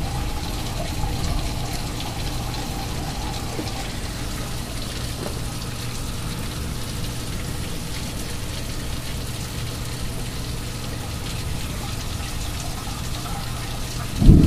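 Steady rushing of heavy thunderstorm rain and gusting wind. Near the end comes a sudden loud thunderclap whose low rumble fades over a couple of seconds.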